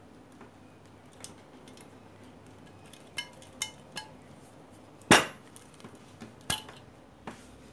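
Metal parts clinking and knocking: a few light ringing clinks, then two sharper knocks about five and six and a half seconds in.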